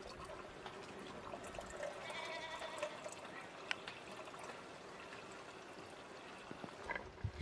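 Water pouring from a large plastic jug into a kettle, a faint steady trickle, with a couple of sharp clicks about three seconds in.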